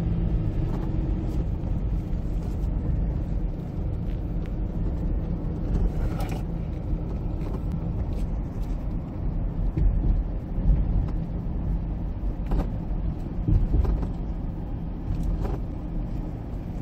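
Car cabin noise while driving: the engine and tyres on the road make a steady low drone, with a few light knocks.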